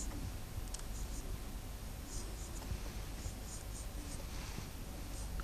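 Marker pen writing on a whiteboard: a run of short, irregular high-pitched strokes as the letters are drawn.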